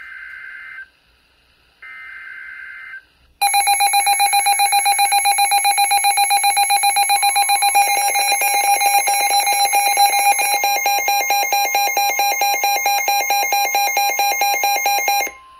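NOAA weather radio alert: two short squawks of the SAME digital header come first, then the Midland weather radios' loud, fast pulsing alarm beeps. The steady 1050 Hz warning tone sounds under them from about halfway through. The alarm cuts off sharply near the end.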